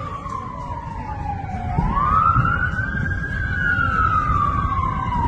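Emergency vehicle siren on a slow wail: the pitch slides slowly down, sweeps back up about two seconds in, slides down again and starts another rise near the end. A steady low rumble runs underneath.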